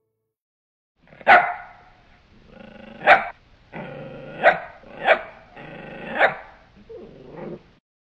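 Dog barking and growling: five sharp, loud barks, the first about a second in, with a steadier, lower growl in the gaps between them, dying away near the end.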